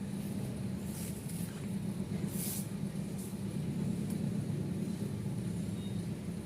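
A steady low machine hum, with two short hisses about one and two and a half seconds in.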